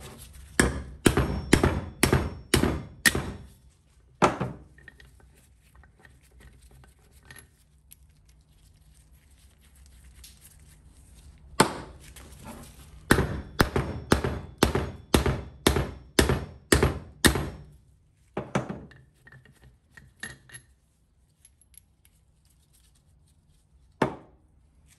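Hammer blows on a bolt left in a Brembo brake caliper, driving out its pressed-in parts. A quick run of about six sharp strikes and a lone one are followed, after a pause, by a second run of about nine, with a few single blows near the end.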